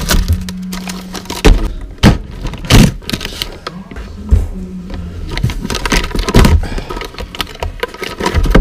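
Plastic-wrapped small parts packages rustling and being dropped and set down on the floor of a cardboard box, close to the microphone, with several sharp thumps against the cardboard.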